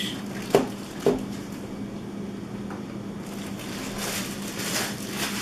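Clear plastic packaging crinkling and rustling as a vacuum attachment is handled and unwrapped, with two sharp clicks about half a second apart near the start. A faint steady low hum sits underneath.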